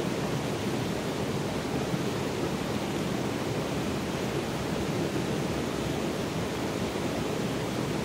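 Shallow rocky stream flowing over stones, an even, unbroken low rush of water.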